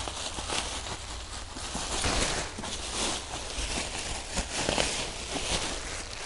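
Plastic bubble wrap being pulled off a scooter and bunched up by hand: continuous crinkling and rustling with irregular small crackles.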